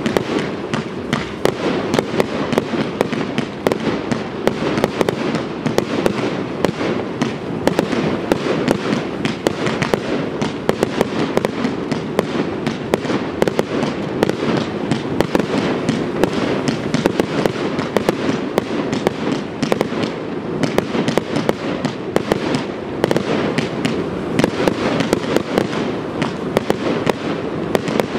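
Aerial fireworks display: a continuous barrage of shells bursting, many sharp bangs and crackles every second with no pause.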